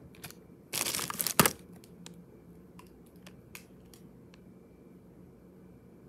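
Plastic crinkling for just under a second, about a second in, ending in a sharp snap, followed by a few faint clicks from handling makeup.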